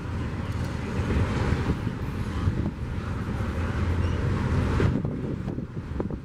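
Freight train rolling past: a steady low rumble, with wind on the microphone and a couple of sharp clicks near the end.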